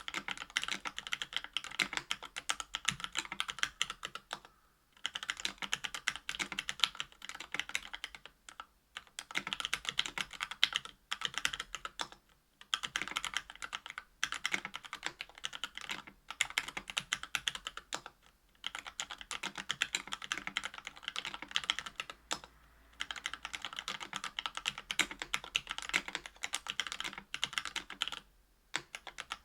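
Typing on a KBDfans Tofu 65% aluminium mechanical keyboard with Matrix Lab FFFF (4F) 62 g linear switches, an aluminium plate, lubed stabilizers and GMK keycaps: dense runs of key clicks lasting a few seconds each, broken by short pauses.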